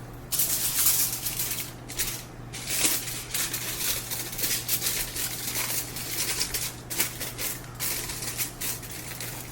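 Sheet of aluminum foil crinkling and rustling irregularly as it is folded over by hand.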